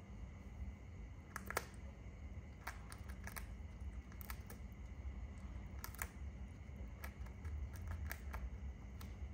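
A shikra hawk feeding on a pigeon: irregular sharp clicks and snaps as its beak tears at the flesh and feathers, over a low steady hum.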